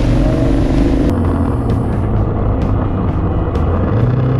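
KTM 990 Adventure's V-twin engine running steadily while riding, with a constant hum and road and wind noise.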